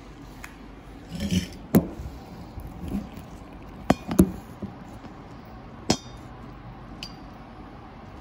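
Hard parts and tools clinking and knocking during disassembly of a Ricoh MP C306 copier: about seven sharp, irregular clinks and knocks, a couple with a short metallic ring.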